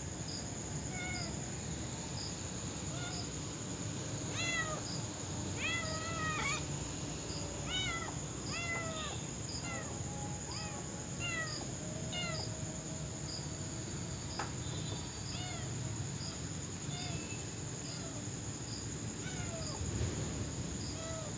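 Kittens mewing over and over in short, high, rising-and-falling cries, most thickly between about 4 and 13 seconds in. Under them runs the steady chirping of crickets, with a soft regular pulse about once a second, and a low background hum.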